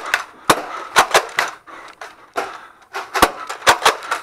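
Irregular sharp plastic clacks and knocks, about eight of them, some in quick pairs: Nerf blasters being primed and fired, with darts striking.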